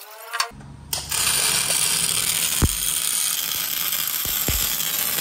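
Electric arc welding on steel, starting about a second in: a steady hiss with a few sharp pops.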